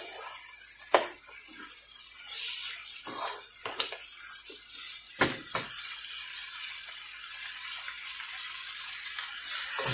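Mutton, onions and spices sizzling in a hot frying pan as they are stirred with a spoon, with several sharp knocks of the spoon against the pan.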